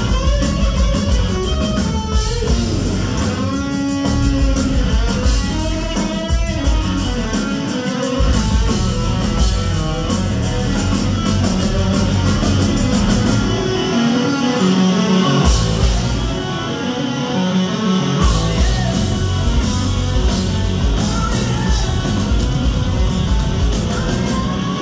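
Rock band playing live, with electric guitar to the fore over bass and drums. The bass and drums drop out twice, for a second or two each time, about two-thirds of the way through, leaving the guitar ringing before the full band comes back.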